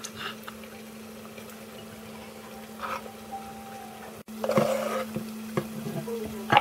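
Kitchen knife cutting soft boiled mushrooms on a wooden cutting board: a few scattered taps and scrapes of the blade against the board, over a steady low hum.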